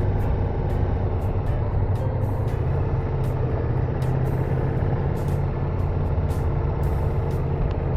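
Ducati Multistrada V4S motorcycle's V4 engine running at a steady cruise while riding, a constant low drone with no revving.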